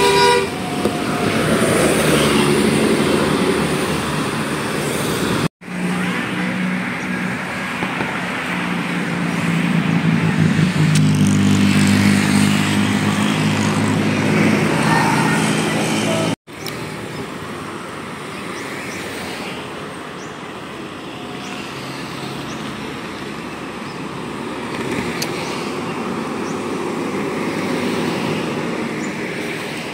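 Buses driving past with their engines running and road traffic noise. A telolet musical horn blast is cut off right at the start. The sound breaks off twice with sudden brief gaps, and the strongest engine hum comes between them.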